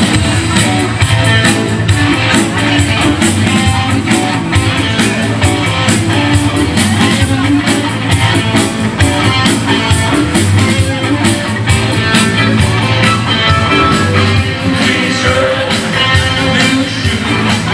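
Live rock band playing a classic rock song over a PA system, with a steady drum beat.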